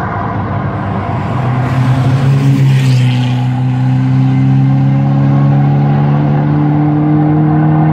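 Car engine accelerating hard on the Nürburgring Nordschleife, its note climbing slowly and steadily in pitch and growing louder from about two seconds in as the car comes up the straight.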